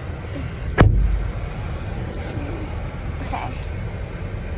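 A van door slamming shut with a single heavy thud about a second in, over the steady low rumble of the idling vehicle.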